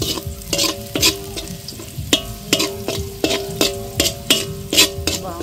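A metal spoon scraping and knocking against a large aluminium wok, about twice a second, while onion, garlic and ginger sauté in oil with a light sizzle. The wok rings on between strokes.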